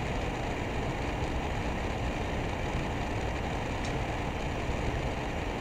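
Steady background hiss and hum of room noise picked up by the microphone, with no distinct events.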